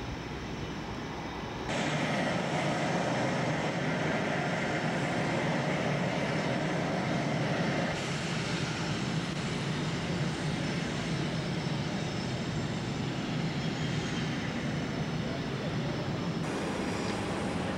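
OV-10 Bronco's twin turboprop engines running steadily on the ramp, a broad engine rush with a high turbine whine, jumping louder about two seconds in.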